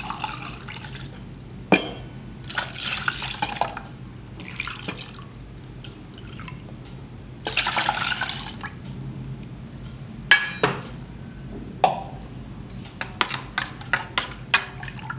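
Liquid pouring and splashing into a large stainless-steel pot in several bursts, the longest about eight seconds in as raw-mango paste is tipped from a steel mixer-grinder jar. Sharp metal clinks in between, and near the end a quick run of clinks of a spoon against the steel pot.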